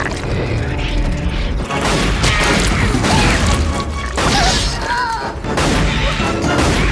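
Giant-spider sound effects: a dense, rapid clicking and rattling of many legs, with short high squeals now and then, over a heavy low rumble.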